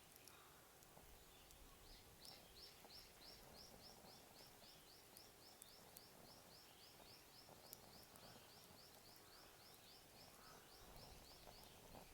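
Faint outdoor ambience with a bird calling in a fast, even run of high chirps, about four a second, starting about two seconds in and stopping near the end, with a few faint sharp clicks.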